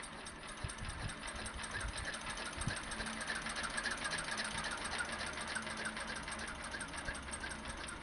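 Fowler 1PA stationary engine running with a fast, even ticking beat, about eight to ten beats a second, growing a little louder about two seconds in.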